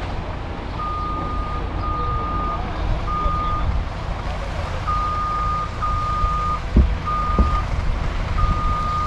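A vehicle's reversing alarm beeping: one high, steady tone repeated seven times at uneven intervals, over a low rumble. Two dull knocks come about two-thirds of the way through.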